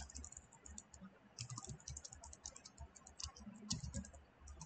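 Computer keyboard typing: faint quick runs of keystrokes, coming thick and fast from about a second and a half in.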